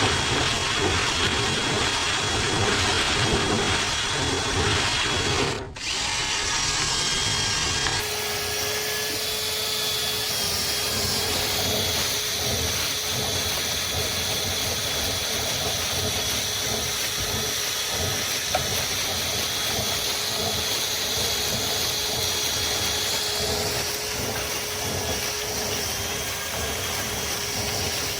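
Power drill running continuously, spinning a rotary brush through a lint-clogged dryer vent line. It drops out briefly about six seconds in and settles into a steadier hum from about eight seconds on.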